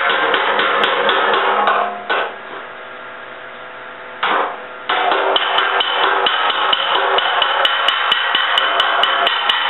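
A body hammer striking a steel car fender over a dolly in rapid, even blows, several a second, with the panel ringing: hammer-and-dolly work knocking lumps out of a 1970 Triumph TR6 rear fender. The hammering pauses about two seconds in and starts again about five seconds in, now with a high ringing tone.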